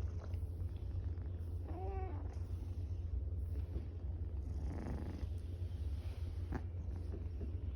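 Tortoiseshell cat purring steadily while being petted, with a short soft pitched call about two seconds in.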